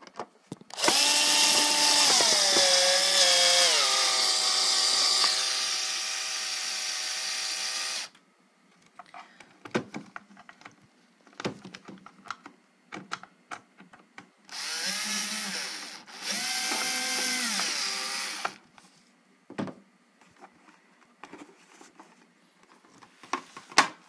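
Power screwdriver driving screws into the back cover of a Dominator ADS garage door opener. The motor whines for about seven seconds, stepping down in pitch, then runs twice more briefly about two thirds of the way through, with small handling clicks between.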